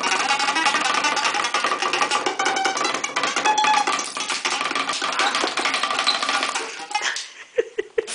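Fast, dense guitar-like music with rapid plucked or strummed strokes. It stops about seven seconds in, and a few sharp knocks follow.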